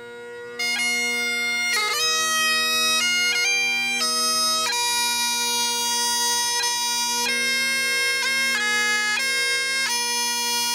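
Bagpipes playing a tune over steady drones, the melody coming in loudly about half a second in.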